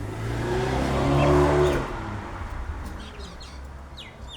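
A car drives past, growing louder and then fading over about two seconds. Near the end come a few short bird chirps, each falling quickly in pitch.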